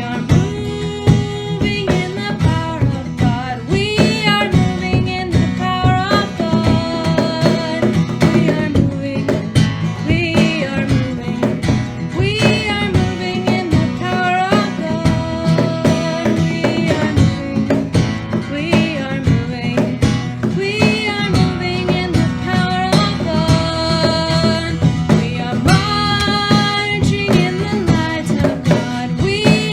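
Worship song: a voice singing a melody over a strummed acoustic guitar with a steady rhythm.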